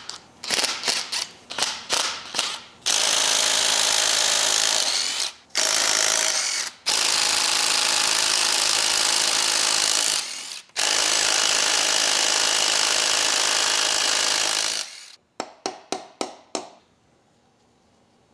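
Cordless impact wrench hammering on the connecting-rod cap nuts of a Willys F-head 134 engine to loosen them for removal. Short trigger blips at first, then long runs of a few seconds each with brief pauses, and a few short blips again before it stops.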